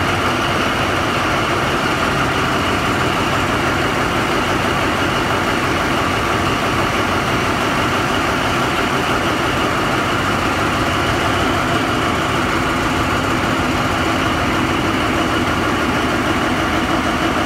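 Steady drone of diesel machinery running in a tractor tugboat's engine room.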